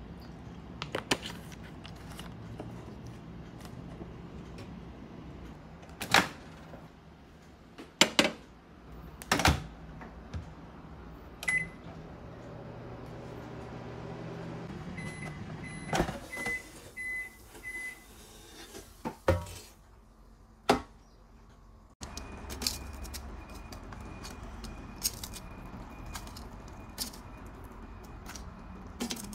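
Kitchen appliance handling: several sharp knocks and clicks, a single beep, then a run of keypad beeps at the same pitch. About two-thirds in, a microwave oven starts running with a steady hum.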